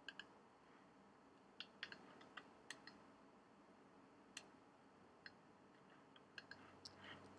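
Near silence with about a dozen faint, irregular clicks from computer use.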